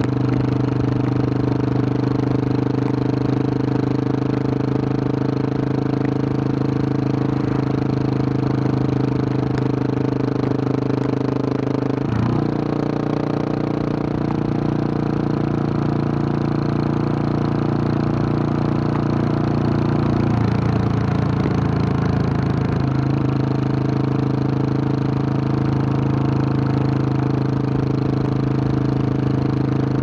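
A 2021 Husqvarna 701 Supermoto's single-cylinder engine, breathing through a Wings aftermarket exhaust, running steadily under way. Its note changes about twelve seconds in and again a little after twenty seconds, then settles back to the first note.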